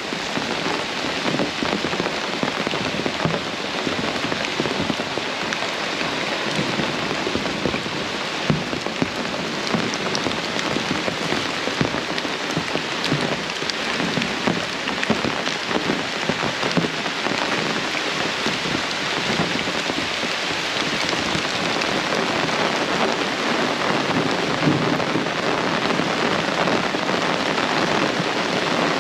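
Heavy rain falling steadily: a dense, even hiss of rain with many small close drop hits.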